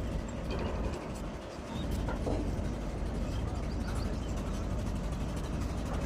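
Steady low engine rumble, dipping briefly about a second in, with a few faint clicks.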